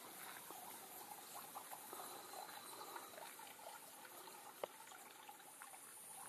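Near silence: faint outdoor background with a few soft ticks and one short, sharp click about two-thirds of the way through.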